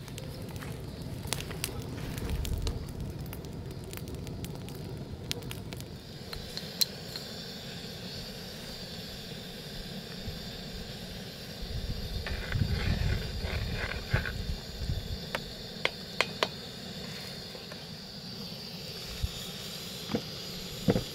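Camping gas stove burner hissing steadily under a pot of coffee and milk. Scattered small clicks and knocks, busiest from about twelve to fifteen seconds in, come from hands working close by.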